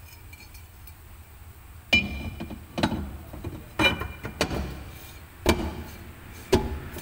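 Swift Dzire's rear brake drum being fitted back over the new brake shoes onto the hub and struck to seat it: about six sharp metallic knocks with a brief ring, starting about two seconds in, roughly one a second.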